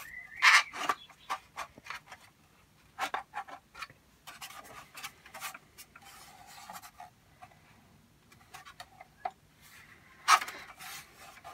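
Painted R2-D2 body parts being handled and fitted together: scattered clicks, knocks and scrapes, the loudest about half a second in and another near the end.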